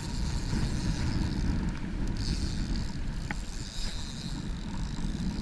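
Strong head-on wind buffeting the microphone: a rough, uneven low rumble.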